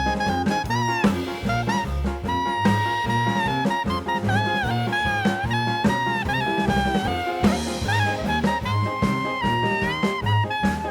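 Upbeat swing-style jazz background music with a brass lead melody over a walking bass and drums.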